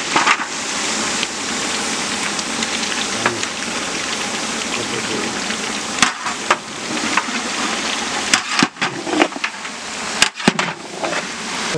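Raw beef chunks sizzling in hot oil in a large aluminium pot as they are tipped in and turned, with several sharp knocks of a long metal ladle against the pot.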